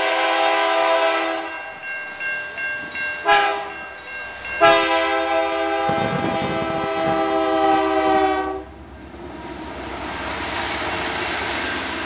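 BNSF diesel locomotive's air horn sounding the grade-crossing signal as a chord of several notes: a long blast ending early on, a short blast, then a final long blast of about four seconds. The lead locomotive then rumbles past and doublestack container cars roll by with steady wheel noise.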